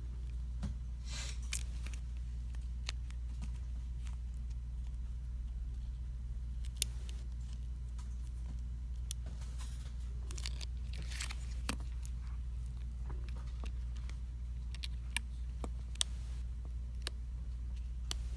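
Scattered small sharp clicks and brief scratching of smartphone parts being handled and pressed into place during reassembly, about ten clicks spread irregularly, over a steady low hum.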